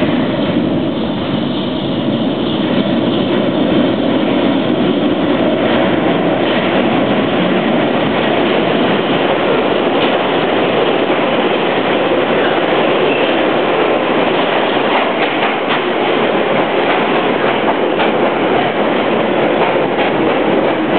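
London Underground train coming into the station: a loud, steady rumble and rattle of wheels on rail that builds over the first few seconds, then holds, with occasional faint clicks.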